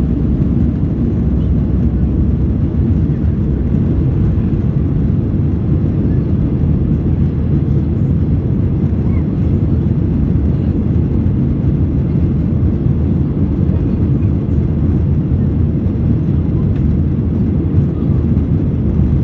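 Airbus A321neo jet engines running at takeoff thrust: a loud, steady low rumble that holds even throughout.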